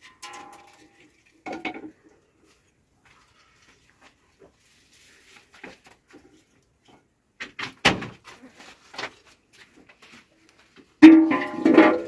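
Scattered knocks and clatter of cookware being handled. About a second before the end comes a loud metallic clang as a large shallow metal pan is set down, and it keeps ringing.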